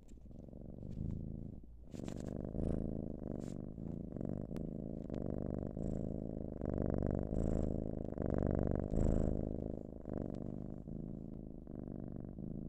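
A cat's purr performed by a human voice actor: a steady low rattling purr that swells and eases with each breath, about once a second.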